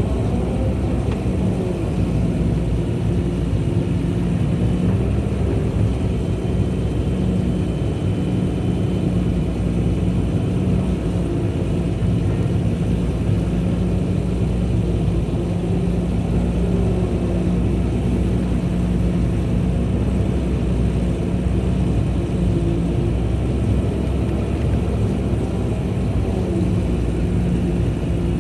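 Excavator's diesel engine running steadily, a constant low drone with a steady hum.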